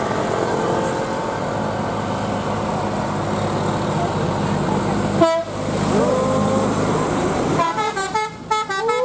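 Tour bus engine running, then about five seconds in a Basuri-style telolet horn plays: a short note, a sliding note, then a quick run of melody notes ending on a held tone.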